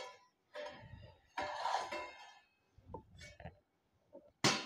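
Large stainless steel plate being handled and slid on a stone countertop, with short rubbing scrapes and a sharp, ringing metal clink near the end.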